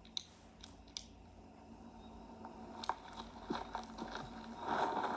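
A few faint clicks and crackles, then about four and a half seconds in a ground-spinner firecracker (chakri) catches and starts hissing, growing louder.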